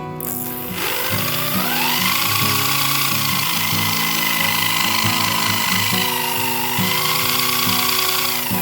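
A motor or power tool spinning up with a rising whine, then running at a steady high whine that sags briefly near the end before dropping away. Background music plays under it.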